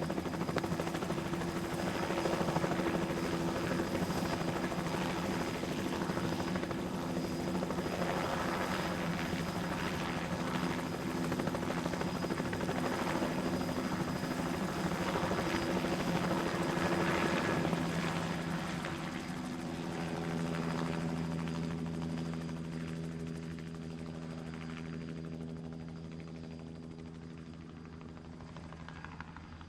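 Helicopter in flight, its rotor and engine running steadily. The sound grows gradually fainter over the last third.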